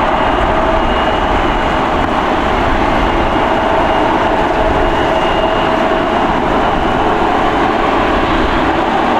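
Boeing 747-8F freighter's four GEnx-2B jet engines running: a steady, loud roar with a constant high whine over it.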